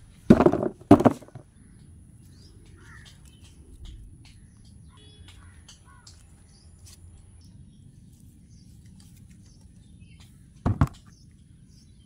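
Green mangoes dropped into a plastic basin: two thumps about half a second apart, then one more thump near the end.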